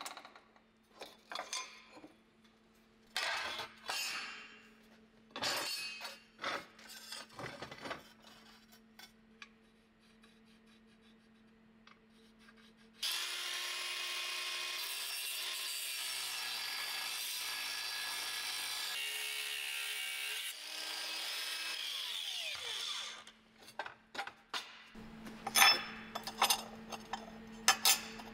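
Hand work with tools: scattered clicks and knocks of parts and tools, then a power tool running steadily for about ten seconds midway, and sharp metallic clinks near the end.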